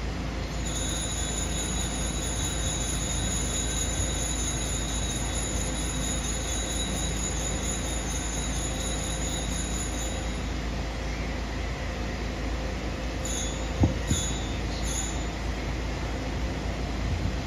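Altar bells rung continuously for about ten seconds, then three short rings, at the elevation of the chalice after the consecration.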